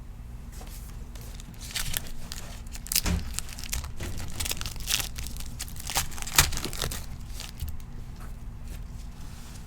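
A trading card pack wrapper being torn open and crinkled, with irregular crackling rustles through the middle.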